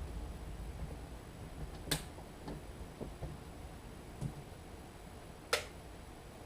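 CoVent B Mark II mechanical ventilator clicking as it cycles: two sharp clicks about three and a half seconds apart, with fainter ticks between them, over a low hum.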